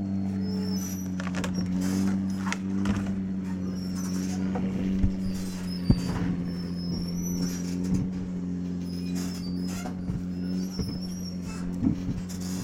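An engine running steadily at one low pitch, with a few sharp knocks and scattered clicks over it.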